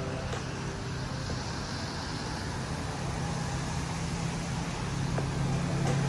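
Steady rumble and hiss of distant road traffic, with a low hum growing louder near the end.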